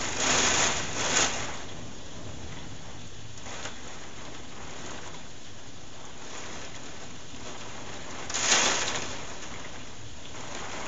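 Heavy thunderstorm rain falling steadily, an even hiss. Two brief louder swells of hiss rise and fall, one at the start and one about eight seconds in.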